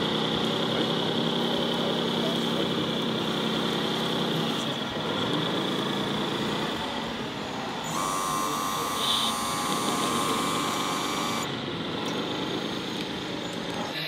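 Small electric hydraulic pump of a scale RC tipper semi-trailer whining steadily as the dump body tips, under a low hum. A different, higher tone takes over for a few seconds past the middle.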